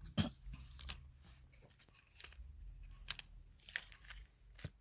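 Coins and their packaging being handled: a few irregular light clicks, with faint rustling between them.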